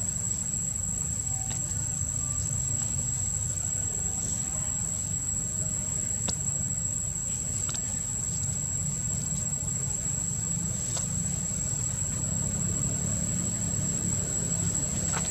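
A steady, high-pitched insect drone, like crickets or cicadas, over a constant low rumble, with a few faint clicks.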